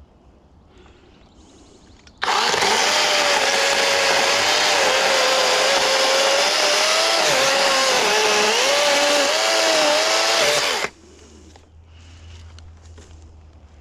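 Kobalt battery-powered electric chainsaw starting up about two seconds in and running for about eight seconds as it cuts into a hard, resin-soaked standing fatwood pine trunk. Its whine sags and wavers in pitch under load, then it stops abruptly.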